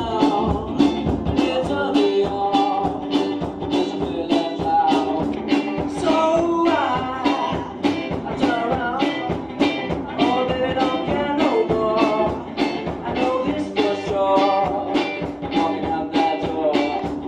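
Live rock band playing: electric guitars and a steady drum beat, with a singer on a microphone.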